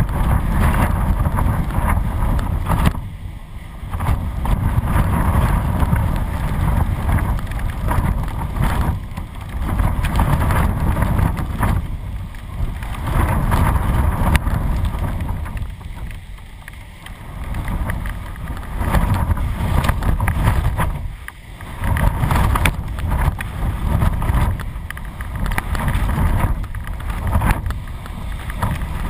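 Strong gusty wind, 20–40 knots, buffeting the microphone of a camera carried on a kite, surging and easing with the gusts and dropping off briefly a few times.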